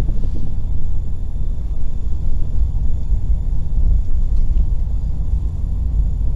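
Steady low rumble of a car's road and engine noise while driving, heard from inside the cabin.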